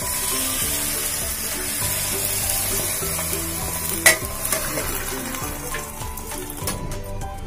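Baghar (tempering) of hot oil with onion, curry leaves and green chillies sizzling as it is poured onto a curry, fading toward the end. A single sharp clank comes about four seconds in.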